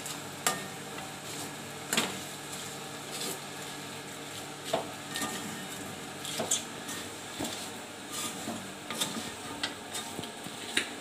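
Fried chicken pieces and thick masala being stirred in an aluminium kadai, with irregular scrapes and clinks of the utensil against the pan over a steady frying sizzle.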